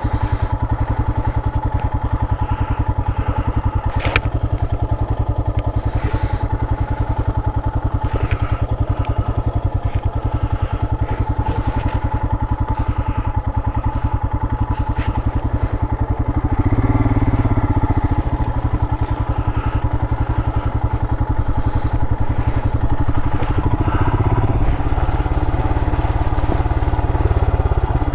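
Royal Enfield Himalayan's single-cylinder engine running steadily at low revs, pulling harder for a couple of seconds about two-thirds of the way through and again briefly near the end, with a few light clicks.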